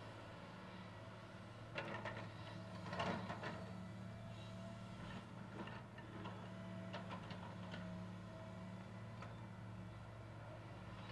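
Caterpillar 315C excavator's diesel engine running steadily, with a burst of knocks and rattling about two to three and a half seconds in as the bucket works into the dirt pile, and lighter scattered clicks after.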